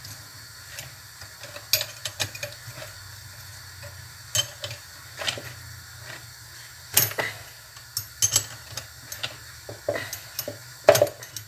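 Irregular metallic clicks and clinks of hand tools on a blender's motor: an 11 mm wrench being worked to tighten the loosened nut on the rotor shaft. The loudest clinks come near the end.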